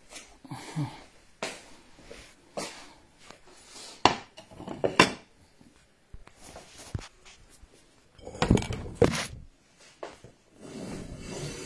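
Metal spoon clinking and scraping against plates and a bowl as rice and fish pepper soup are dished up: a scatter of sharp clinks and knocks, loudest about four to five seconds in and again around eight to nine seconds.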